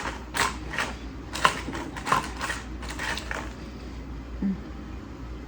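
Close-up chewing of crunchy fast food, a quick run of crisp crunches about three a second that fades out about three and a half seconds in.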